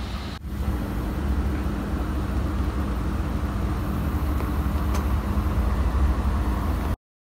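Steady low rumble of a running vehicle engine, starting just after a cut and stopping abruptly near the end.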